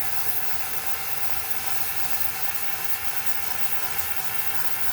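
Hercules rotary polisher fitted with a sanding pad running steadily, sanding down cured body filler on a fiberglass panel: a constant motor whine over an even sanding hiss.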